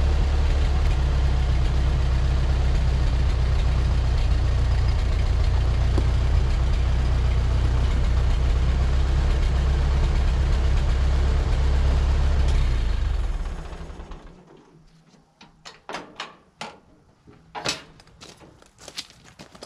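Ford 9N tractor's four-cylinder flathead engine running steadily at low speed, then shut off about thirteen seconds in. After that, a few scattered light clicks and knocks.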